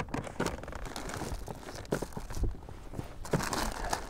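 Handling noise on an inflatable PVC boat: rustling of clothing and gear with scattered light knocks, as a tool is dug out to free a deeply swallowed hook. The rustling gets denser near the end.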